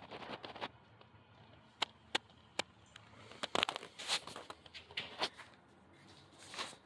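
About eight sharp clicks and light knocks at irregular spacing, over a faint steady background.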